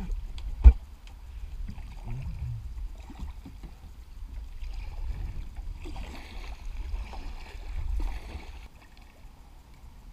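Kayak paddling on a river, with a low wind rumble on the microphone. A single sharp knock comes less than a second in, and a hiss of water splashing from paddle strokes runs for a few seconds before stopping suddenly near the end.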